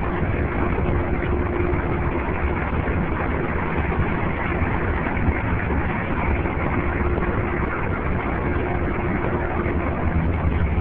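Steady, muffled outdoor rumble recorded through a camera phone's built-in microphone while walking, with a faint steady hum now and then and no high sounds at all.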